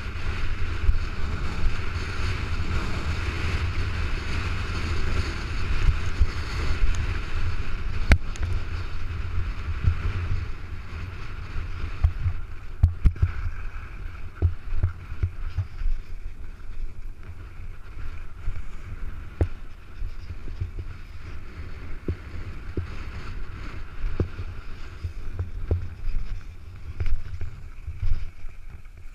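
Wind buffeting a body-mounted action camera's microphone during a fast descent on snow, over the steady hiss and scrape of the run across packed, tracked snow. Scattered sharp knocks come in from about halfway, where the run grows quieter.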